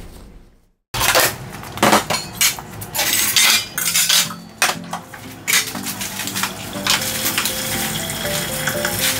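Dishes, cups and utensils clattering as they are handled on a cafe counter, with a string of sharp knocks over the first few seconds; light background music with a simple stepped melody comes in after about five seconds.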